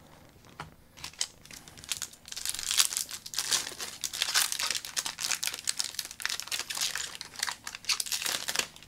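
Foil wrapper of a trading card pack crinkling and tearing as it is opened by hand: a few light clicks, then about six seconds of dense crackling that stops just before the end.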